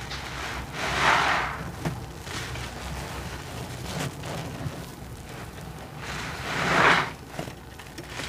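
Soaked sponge squeezed in a sink full of soapy suds: two long wet gushes of water and foam, about a second in and again near the end, each building and then stopping short, with softer squishes and sloshes between.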